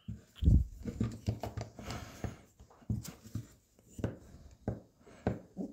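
Short, irregular knocks, scuffs and clicks of a Harley Shovelhead front brake master cylinder's lever being pressed into its cast housing against the return spring to line up the pivot hole, with breaths of effort.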